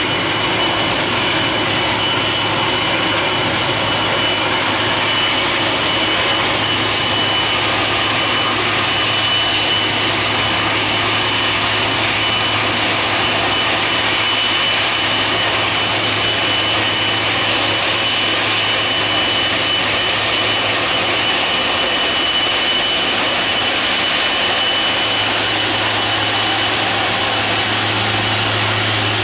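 Jet airliner engines running at low taxi power: a steady rumble and hiss with a constant high-pitched whine, unchanging throughout.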